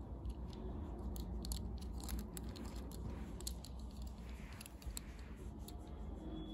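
Fingers handling a small die-cast Majorette Bentley Continental GT toy car, giving scattered light clicks and rustling over a steady low rumble.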